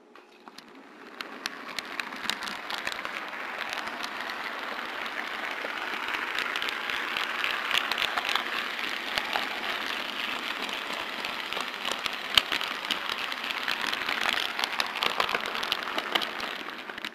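HO scale model freight train rolling along the track, heard from a small camera riding on a flatcar: a steady rattling of small metal wheels on the rails, peppered with many little clicks. It builds up over the first couple of seconds and cuts off abruptly near the end, with one sharper click about twelve seconds in.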